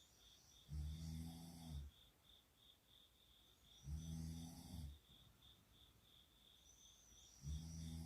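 A sleeping person snoring softly in slow, regular breaths: three low rasping snores about three and a half seconds apart, each lasting around a second.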